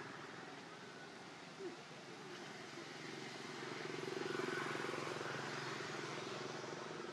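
A steady engine drone, growing louder about four seconds in, with a single short knock near the start.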